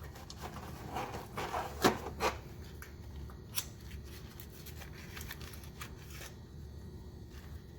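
Packaging and small plastic parts being handled: rustling with a few sharp clicks between about one and two and a half seconds in, then only faint scattered ticks.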